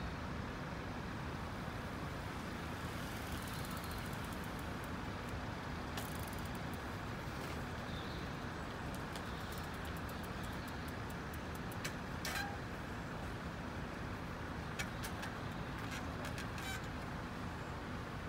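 Steady low rumble of road traffic and idling vehicles, with a few faint clicks.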